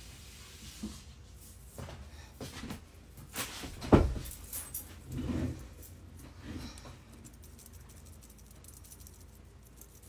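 Scattered knocks and rustles of someone moving about and handling things close to the phone's microphone, the loudest a sharp knock about four seconds in; after about seven seconds only quiet room tone.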